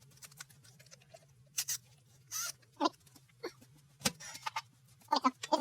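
Scattered clicks, scrapes and short squeaks of hand tools and metal engine parts being handled during an engine teardown, with a sharp click about four seconds in, over a faint steady low hum.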